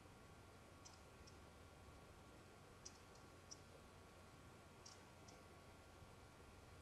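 Near silence: room tone with a low steady hum and a few faint, short clicks scattered through it.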